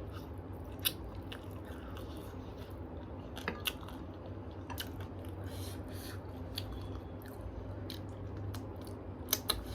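A person chewing and biting food, with a few short sharp mouth or eating clicks, over a steady low hum.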